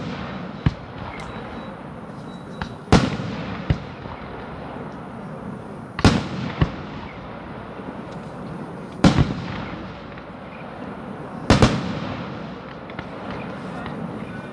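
Aerial fireworks shells bursting: five loud bangs about three seconds apart, each trailing off with echo, with smaller pops between them.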